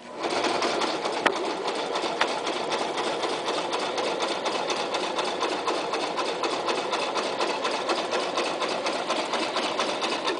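Toyota Super Jeans J34 domestic sewing machine running at a steady speed, its needle stitching with a rapid, even rhythm through several layers of leather-like strips. It starts up sharply and stops about ten seconds later.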